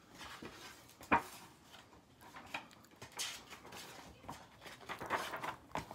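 Paperback book pages being turned and handled, soft paper rustling with a sharp tap about a second in.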